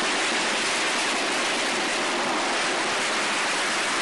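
Steady, loud rushing hiss of noise, even throughout, with no distinct shots or voices: the noisy sound track of old archival television footage.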